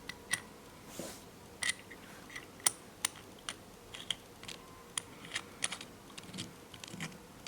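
Small, sharp metal clicks and taps at irregular intervals, from a watch case back being fitted and closed onto the case.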